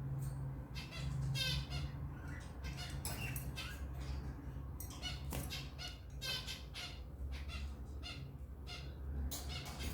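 African lovebirds chirping and squawking in a busy run of short, harsh calls, over a low steady hum.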